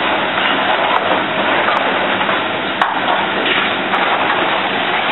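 Restaurant kitchen ambience: a steady loud rushing noise with a few sharp clinks of utensils against pans, the loudest about halfway through.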